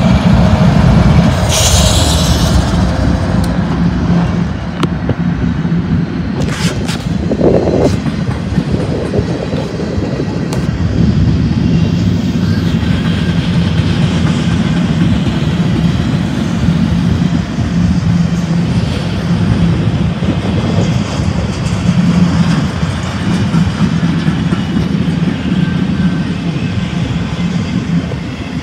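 BNSF freight train passing close by: a diesel locomotive goes by first, then a string of empty intermodal well cars rolls past with a steady, loud rumble of wheels on rail. A brief high-pitched sound comes about two seconds in, and a few sharp clicks come around six to seven seconds in.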